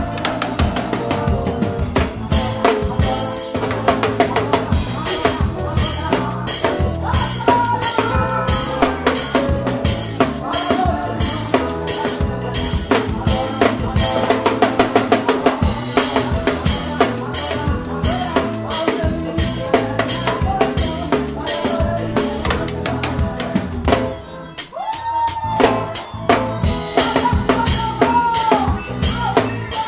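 Drum kit played hard within a full band's worship song, kick, snare and rimshot strokes over sustained instruments. There is a fast run of strokes about halfway through and a short break near the end, followed by renewed fills.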